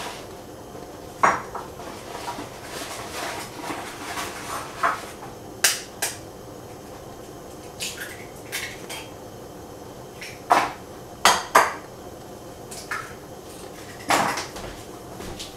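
Kitchen dishes and utensils clinking and knocking: scattered sharp knocks at irregular intervals, the loudest three in quick succession about ten and a half seconds in.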